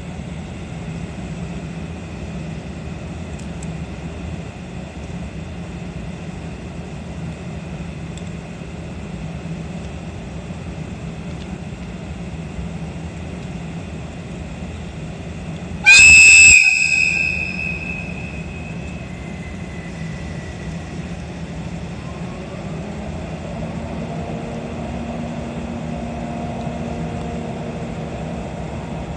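EF64 1000-series electric locomotive giving one short, loud blast on its whistle about halfway through, which echoes away over a second or two. Around it a steady low hum, and near the end faint rising tones as the locomotive starts to pull away with its train.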